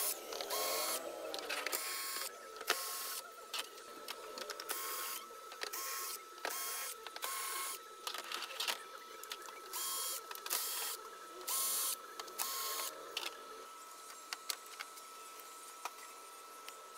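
Cordless drill-driver backing out the screws of a flat-screen TV's plastic back cover: the motor runs in more than a dozen short bursts of about half a second each. The bursts stop about two-thirds of the way through.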